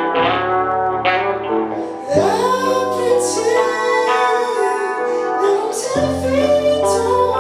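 Live acoustic Americana/R&B song. Plucked guitar notes ring out and fade, then about two seconds in a held, wavering melody line starts over sustained accompaniment.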